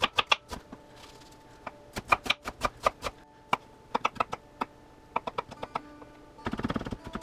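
Chef's knife chopping an onion on a wooden cutting board: quick runs of sharp taps as the blade strikes the board, with short pauses between runs and a faster flurry near the end.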